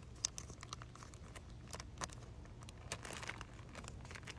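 Clear plastic bags crinkling as they are handled, with scattered small crackles and ticks.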